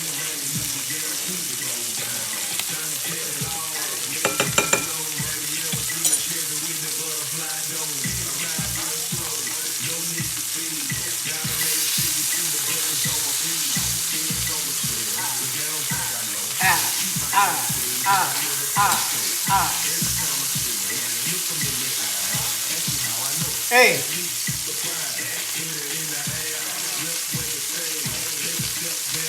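Chicken breasts frying in butter in a pan, a steady sizzle, with a few clicks of utensil or pan about four seconds in.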